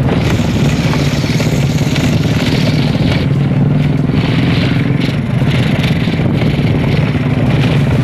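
Motorcycle engine running at a steady pace as it is ridden, heard from on the bike.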